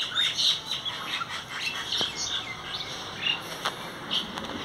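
Small birds chirping repeatedly in short high calls, with a few faint clicks and knocks in between.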